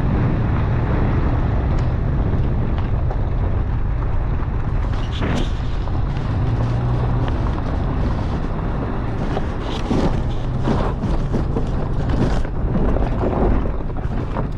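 A vehicle engine running steadily with a low hum, wind buffeting the microphone over it, and a few brief thumps.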